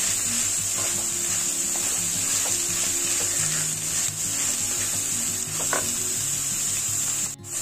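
Sliced onions sizzling in hot oil in a pot as they are sautéed, with a wooden spatula stirring and scraping through them. The sound cuts out briefly near the end.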